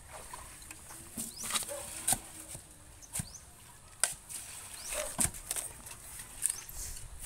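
A shovel scraping and chopping into a heap of sand and cement being hand-mixed with water, in several irregular strokes.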